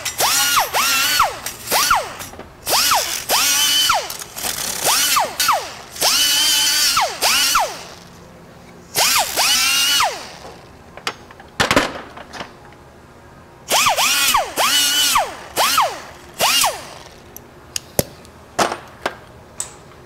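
Air-powered zip gun (pneumatic die grinder) with a wire wheel, triggered in repeated short bursts; each burst's whine rises as it spins up and falls as it slows. It is cleaning old gasket residue off an exhaust manifold's flange. A quieter stretch with a few sharp clicks comes midway, and a few sharp taps near the end.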